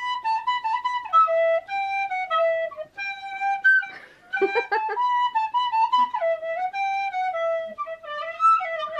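Recorder playing a simple melody one note at a time, somewhat hesitantly, with a short break about four seconds in.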